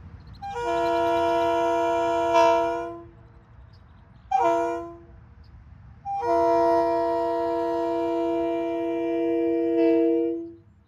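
Leslie RS-2M air train horn sounding three blasts: a long one, a short one, then a longer one of about four seconds.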